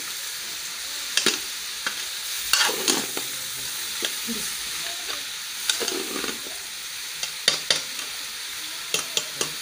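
Sliced carrots and tomatoes sizzling as they fry in ghee in a metal pot, stirred with a metal spoon that scrapes and clinks against the pot at irregular moments.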